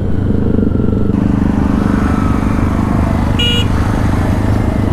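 Motorcycle engine running steadily at low speed, with one short, high beep of a vehicle horn about three and a half seconds in.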